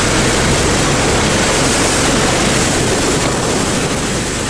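Husky motorized tracked snow sled running under full towing load, its small engine a steady low drone under a loud continuous rush of wind and sled runners sliding over snow.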